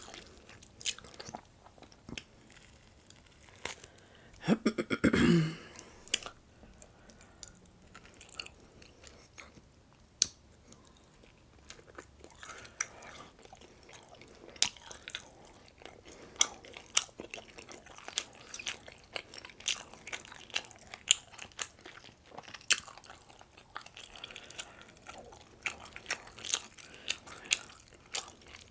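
Close-miked chewing, biting and crunching of breakfast food, with frequent sharp wet mouth clicks. About five seconds in, a short, loud voiced sound that falls in pitch, like an appreciative "mmm".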